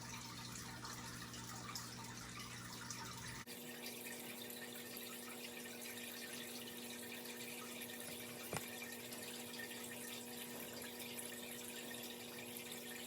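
Faint steady room tone: a soft hiss with a low electrical hum. The background changes abruptly about three and a half seconds in, and a single light click comes a little past the middle.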